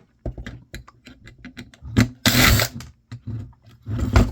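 Small clicks and rattles of a screwdriver and loose parts as screws are taken out of an old camcorder's chassis. There is a loud scraping burst about two seconds in and a shorter one near the end.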